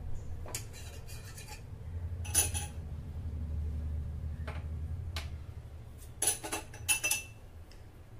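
A spoon clinking against a plate several times, the loudest clink about two and a half seconds in, over a low steady hum.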